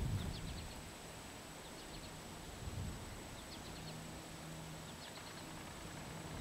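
A small songbird repeating a short phrase of four or five quick high chirps about every one and a half seconds, over a faint low drone from the distant twin piston-engine Cessna 404 Titan on approach.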